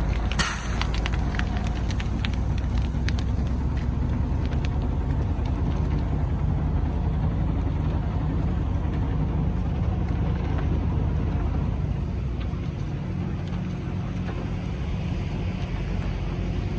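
Kobelco excavator's diesel engine running steadily, with one sharp bang of rock on the steel bucket about half a second in and scattered clattering of rock over the next few seconds.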